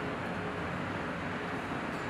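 Heavy truck's diesel engine running steadily as the finished truck is driven.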